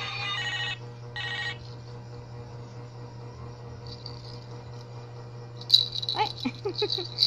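A toy phone's electronic tune stops within the first second, followed by a brief second burst of tones. About six seconds in, a plastic baby rattle is shaken, clattering rapidly.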